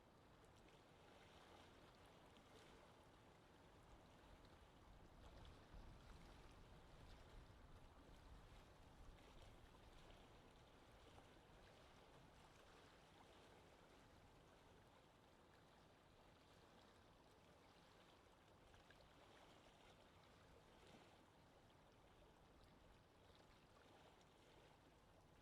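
Faint lake ambience: water lapping gently, with soft small splashes now and then.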